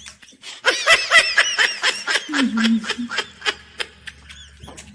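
A man laughing, a quick run of short high-pitched giggles, followed by a few faint clicks.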